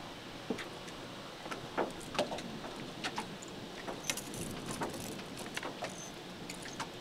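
Irregular small metallic clicks and rattles as a fishhook is worked free from a fish's gill plate in a landing net on a metal boat deck, over a steady hiss.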